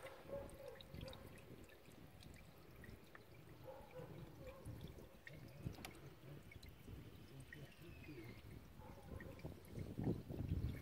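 Solvent being poured from a plastic bottle into an engine's oil filler neck: a faint liquid trickle and splash, a little louder near the end.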